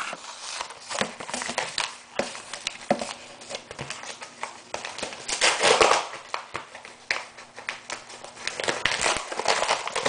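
Paper envelope being handled and opened by hand: irregular crinkling and rustling of the paper, with a louder rustle just past halfway.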